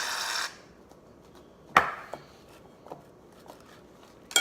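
A small electric motor buzzing cuts off about half a second in. A single sharp knock follows. Near the end comes a clatter of dishes with a brief ring.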